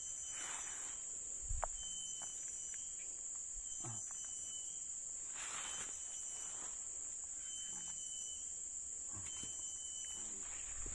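A steady, high-pitched chorus of insects, with a few faint handling rustles and a soft low thump about a second and a half in.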